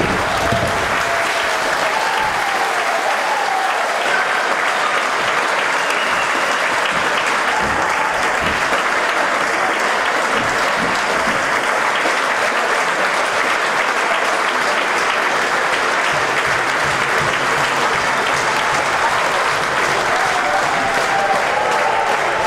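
Concert audience applauding steadily, with a few voices calling out over the clapping near the start and again near the end.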